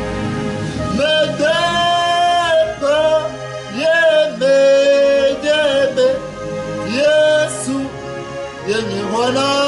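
A man singing a gospel hymn, holding long notes that bend into and out of each phrase, over soft instrumental accompaniment.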